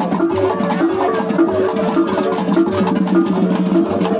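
Percussion music with a steady beat and a short pitched figure repeating over and over.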